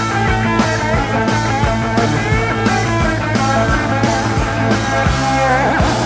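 Rock music with guitar and a steady drum beat, played back from a vinyl record on a turntable fitted with a Sumiko Blue Point Special Evo-III high-output cartridge.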